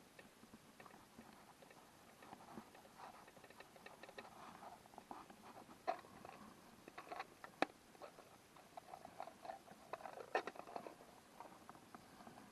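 Dry firewood crackling and snapping: faint, irregular clicks with a few sharp snaps, the loudest about seven and a half seconds in.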